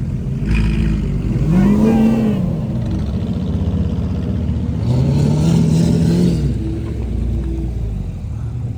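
Car engine revving: the pitch climbs and drops back twice, over a steady low running rumble.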